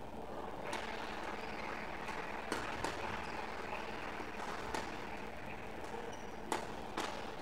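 Badminton rackets striking a shuttlecock in a doubles rally: about six sharp hits, irregularly spaced, some a second or two apart and a few in quick pairs, the loudest near the end. Under them is the steady background noise of the hall.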